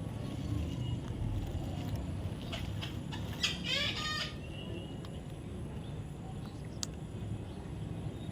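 A bird gives one short, harsh call about three and a half seconds in, over a low steady rumble, with a few faint clicks.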